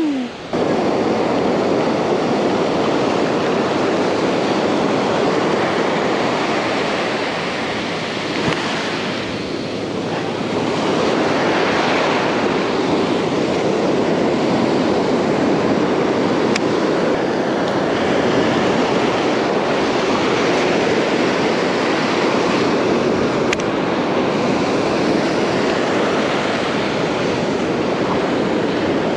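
Ocean surf breaking and washing up a sandy beach: a steady rush that eases a little around eight to ten seconds in, then builds again.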